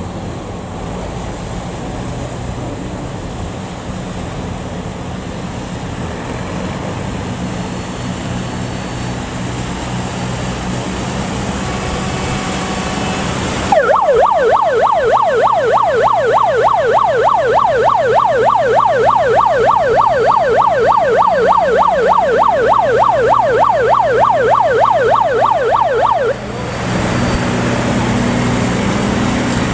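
Boat engine running steadily and slowly growing louder. About halfway through, a loud electronic yelp siren starts, warbling quickly up and down about three times a second for roughly twelve seconds, then cuts off suddenly while the engine keeps running.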